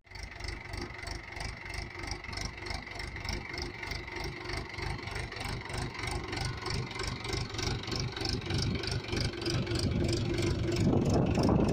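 Mahindra 475 DI tractor's four-cylinder diesel engine running steadily under load, pulling a two-row potato planter through tilled soil, with an even rhythmic throb. It grows louder about a second before the end.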